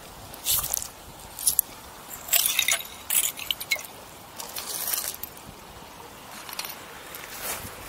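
Pebbles and glass shards clinking and rattling against each other as a hand rummages through wet gravel at the river's edge, in several short bursts of clatter.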